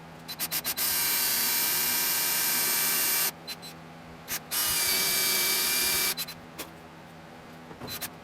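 Pressurised air hissing from a nozzle: a few quick short bursts, then a long burst of about two and a half seconds, a brief blip, and a second long burst of about a second and a half, each starting and stopping sharply.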